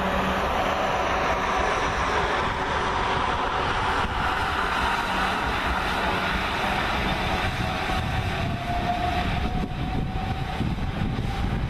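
South Western Railway class 444 Desiro electric multiple unit running past and away, a steady rumble of wheels on the rails. A whine rising slightly in pitch comes in about eight seconds in.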